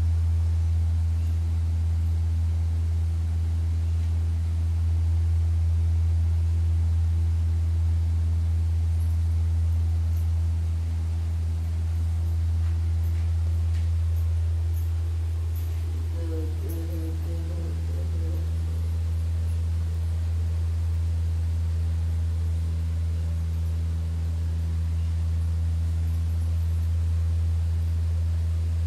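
A steady low hum with a few fainter steady tones above it, unchanging throughout. There is a brief faint murmur a little past the middle.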